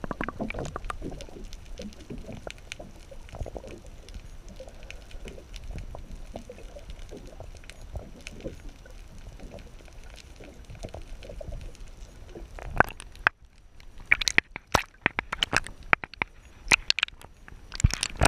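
Muffled water sloshing and rumbling heard through an underwater camera housing just below the surface. About thirteen seconds in it gives way to a run of sharp, loud clicks and knocks.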